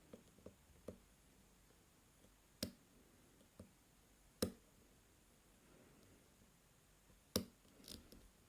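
Faint, scattered clicks and taps of lock-picking tools working the pin stack of a Draper Expert 61mm padlock under tension, with a few sharper clicks spread through.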